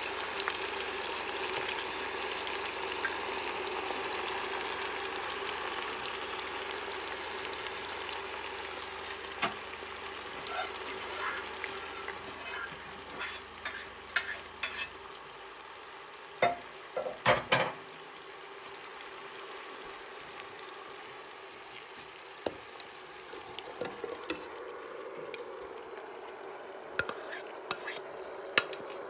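Seasoned mutton sizzling in hot corn oil in a pressure cooker pot, with scattered clicks and knocks as it is stirred. The sizzle dies down about halfway through.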